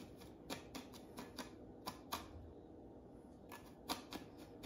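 Rim of an upturned cocktail glass being pressed and turned in a dish of salt: faint gritty scrapes and about ten light, irregular clicks of glass against the dish.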